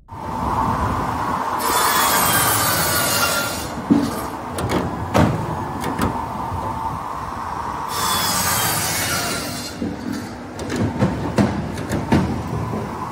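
PINOSA CPE 1200 firewood processor running, its 1200 mm circular saw blade cutting through a log twice, about two seconds in and again about eight seconds in. A steady whine runs underneath, with clunks and knocks of the logs between the cuts.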